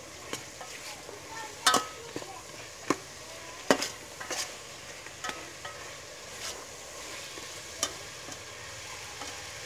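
Pork pieces sizzling as they fry in a metal pot, stirred with a metal ladle that scrapes and knocks against the pot several times, loudest at about two and four seconds in.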